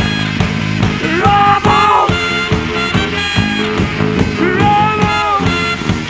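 Live rockabilly band playing an up-tempo number, with a steady drum beat under electric guitar. A lead line slides up into two long held phrases, about a second in and again about four and a half seconds in.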